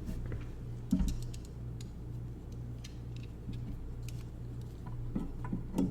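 Small metallic clicks and ticks as short screws are started into a metal shelf bracket, with one louder knock about a second in, over a steady low hum.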